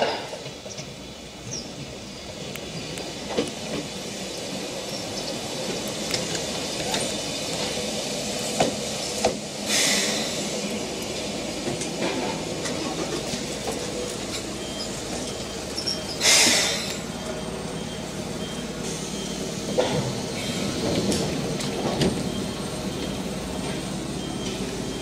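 Small electric commuter train rolling in along the rails and coming to a stop, its wheels and motors running steadily. Two sharp hisses of compressed air sound about ten and sixteen seconds in, the second followed by a faint rapid beeping.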